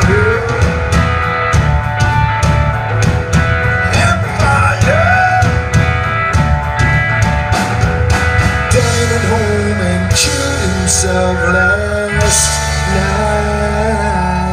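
Live rock band playing the closing bars of a song: guitars, bass and a drum kit, with gliding sung or bent-guitar notes over the top. The drumming thins to a couple of cymbal crashes after about eight seconds, and the band holds a final chord.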